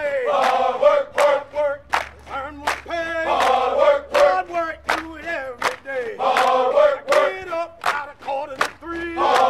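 A group of voices chanting a repeated phrase, swelling about every three seconds, over a fast, steady beat.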